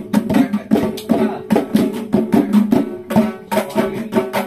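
Mridangams played together in a fast, dense run of sharp strokes, the tuned drum heads ringing at a steady pitch under the slaps.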